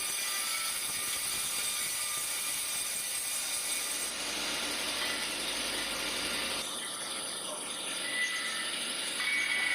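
Sawmill machinery running steadily: a continuous high-pitched hiss with a thin whine over it.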